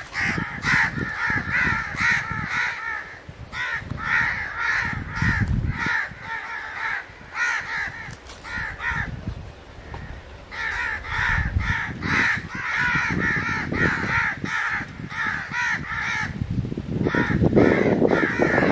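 Birds calling over and over in rapid runs of repeated notes, with bouts of low rumbling noise that are loudest near the end.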